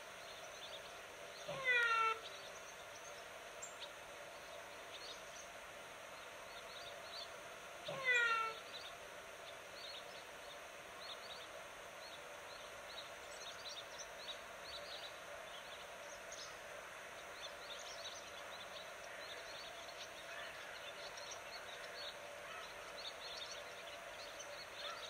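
A cat meowing twice, each meow about half a second and falling a little in pitch, some six seconds apart, over faint chirping of small birds.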